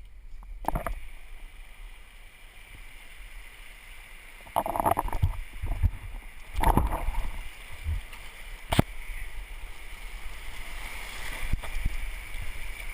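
A raft oar dipping and pulling through river water, with splashing and gurgling that swell twice in the middle, over steady rushing water and low wind rumble. A few sharp knocks are also heard.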